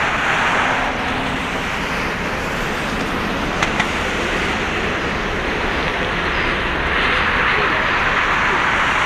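Jet engines of a Boeing 787-8 (Rolls-Royce Trent 1000s) running as the airliner rolls along the runway before takeoff: a steady low rumble with a rushing hiss that swells near the end. Two brief sharp clicks sound about three and a half seconds in.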